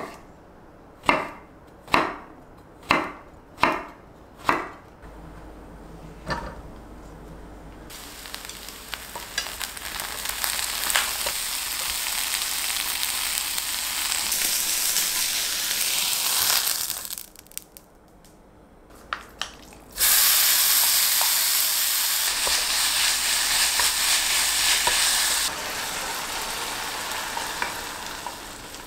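A kitchen knife chopping eggplant on a wooden cutting board, about seven strokes. Then eggplant pieces sizzle in a frying pan as they are turned with chopsticks; after a short lull with a couple of clicks, louder sizzling of frying starts up again and drops somewhat near the end.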